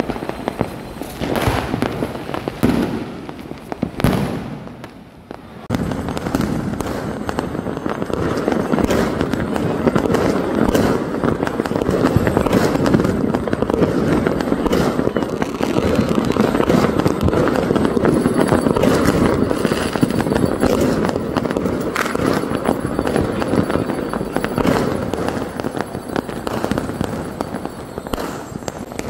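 Firecrackers going off in sharp bangs, repeatedly, over the din of a large crowd's voices that grows loud about six seconds in and stays so.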